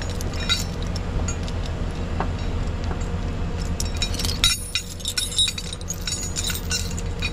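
Steel tow chain clinking and rattling as it is gathered up by hand, the links knocking together in quick runs that grow busier after about four and a half seconds, over a steady low engine hum.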